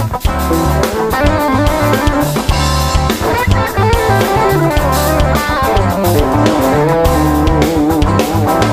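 Rock music: electric guitar, bass guitar and drum kit playing together with a steady beat.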